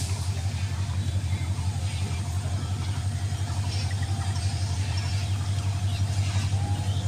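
Diesel locomotive engine running with a steady low drone and a fast, even throb as the train departs.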